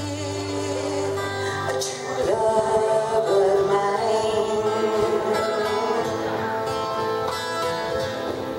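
A woman singing, accompanied by her own twelve-string acoustic guitar.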